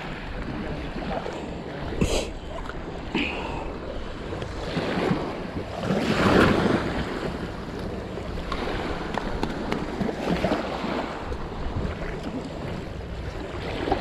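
Wind buffeting the microphone over small waves lapping on a gravel shore, a steady rush of noise that swells louder about six seconds in.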